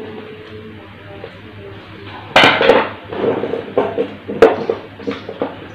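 Hard plastic and metal handling noise on a wiring board: a sharp clatter about two and a half seconds in, then a run of lighter clicks and knocks as tools and push-button switches are picked up and set down.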